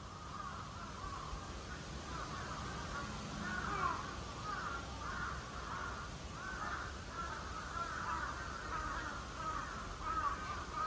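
Birds calling in a continuous jumble of short, overlapping calls.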